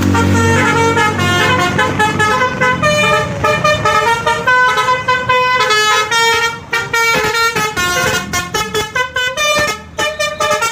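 Bus 'telolet' musical horn of the Basuri type playing a tune of stepping notes. The notes get shorter and choppier after about six seconds. A low engine rumble sits under it at the start.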